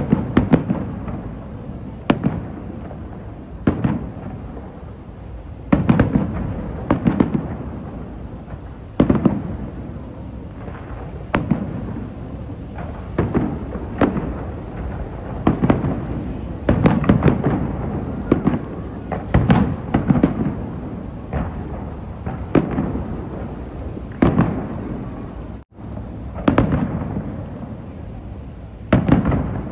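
Aerial fireworks bursting in a continuous barrage: sharp booms every one to two seconds, some in quick clusters, each trailing off in a low echoing rumble.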